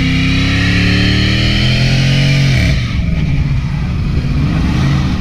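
A car's engine held at high revs during a burnout, its rear tyres spinning and squealing against the pavement. About three seconds in the revs drop away and the engine runs rough and uneven.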